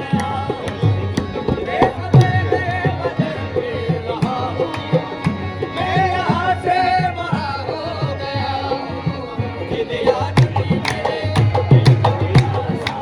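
Qawwali music: a voice singing drawn-out, wavering lines over tabla drumming, the drum strokes growing heavier in the last few seconds.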